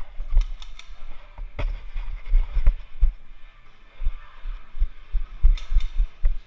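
Repeated low, muffled thuds of movement knocking a worn camera, with several sharp snaps of airsoft pistol shots: three in quick succession about half a second in, one more a second later, and two near the end.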